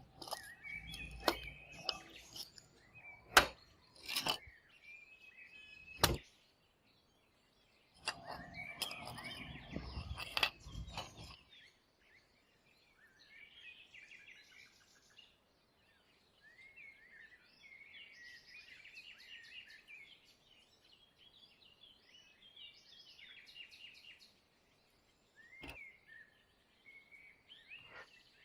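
Sharp clicks and knocks of small objects being handled for the first ten seconds or so, then birds chirping in the background, with one more click near the end.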